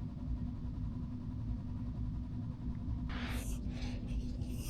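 Steady low background hum, with a brief rustling scrape about three seconds in and another near the end.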